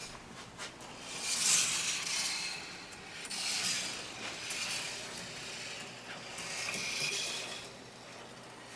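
A marble rolling along a marble-run track, with small clicks and clinks. The rolling swells three times as the marble runs down the drops and around the turns.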